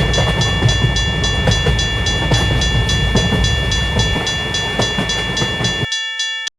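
A train running past with a heavy rumble, over the steady, evenly repeating ringing of a railroad crossing bell. The train sound cuts off abruptly near the end, leaving the bell briefly on its own.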